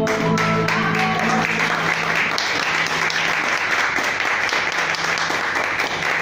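Audience applauding at the end of a song, with a few last keyboard notes sounding in the first second.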